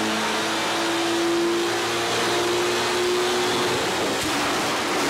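A tuned Mk3 Volkswagen Golf's engine pulling at full throttle on a chassis dynamometer, a loud, rushing noise with an engine note that climbs slowly as the revs rise, then fades about four seconds in.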